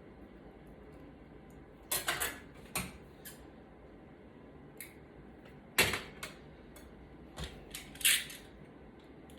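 Small metal hand tools clicking and scraping against hard surfaces in a handful of separate strokes, the loudest about six seconds in.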